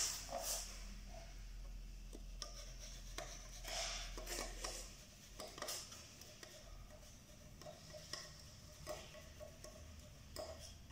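Faint scraping and light clicking of a small putty knife drawn in short strokes along paper masking tape on a baseboard, pressing the tape's edge down to seal it so paint cannot seep underneath.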